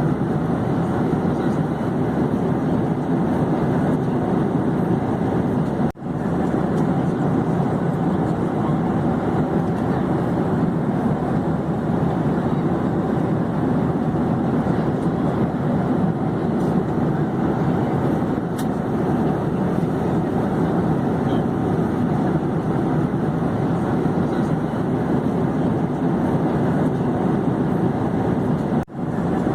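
Airplane in flight: a steady, even rush of engine and airflow noise. It drops out for an instant twice, about six seconds in and near the end.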